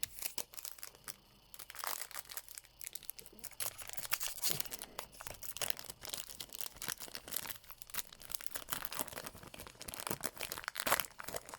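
Foil trading-card booster pack wrapper crinkling and tearing as it is handled and opened, with irregular rustling throughout.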